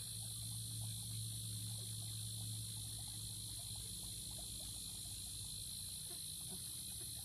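Steady high-pitched chorus of insects, continuous and unchanging, over a low steady hum.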